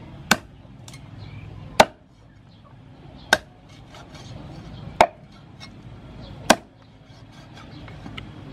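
Meat cleaver chopping raw chicken on a thick round wooden chopping block: five sharp chops about a second and a half apart, with lighter knocks in between.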